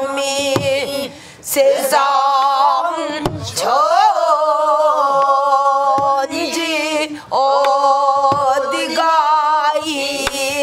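Pansori singing: one voice holds long notes with a wide vibrato, broken by short pauses. A buk barrel drum is struck now and then underneath.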